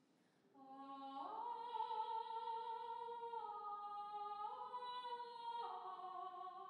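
A single voice singing unaccompanied in slow, long-held notes. It starts about half a second in, glides up soon after, then steps between sustained tones.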